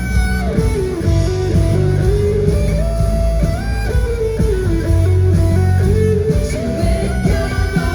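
Live band music in an instrumental passage: a guitar plays a melodic lead line with sliding notes over a steady bass.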